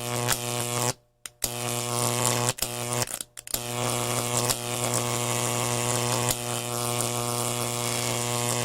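Electricity sound effect: a loud electric buzz, a steady hum with a crackling hiss over it. It cuts out briefly a few times in the first few seconds, then runs on steadily.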